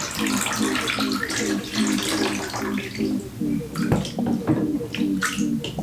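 Water splashing in a baby bathtub for about three seconds, then a few separate splashes and knocks.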